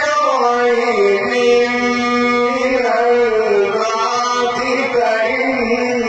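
A male reciter chanting the Quran in melodic tajweed style, one voice holding long, slowly wavering notes with scarcely a break.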